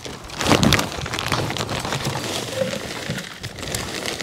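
A plastic bag of garden soil being handled and emptied into a planter basket: crinkling plastic and soil pouring, with a louder burst of rustling about half a second in.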